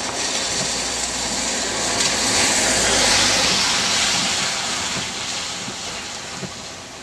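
A vehicle passes on a wet road: its tyre hiss and rumble swell to a peak about three seconds in, then fade. Steady rain sounds underneath.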